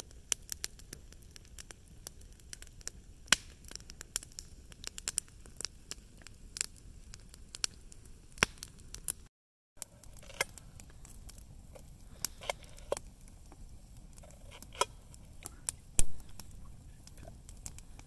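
Wood campfire crackling, with many sharp pops and snaps. After a cut about halfway through, a knife slices a garlic clove over a metal pot lid, with sparser crackles and clicks and one louder click near the end.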